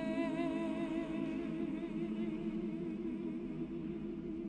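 A male solo voice and a choir hold one long sustained note with vibrato on the word 'in' of 'shall not be in vain'.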